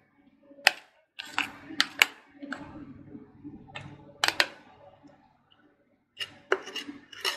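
Irregular sharp clicks, about ten in clusters, of a utensil knocking and scraping against the mixing bowl as thick cake batter is poured into a metal cake tin. A soft low murmur runs between the clicks.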